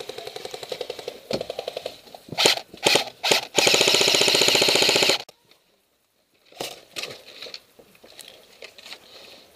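Airsoft gun firing on full auto close by: a few short bursts, then one long rapid burst of about a second and a half that cuts off sharply. Fainter scattered shots follow.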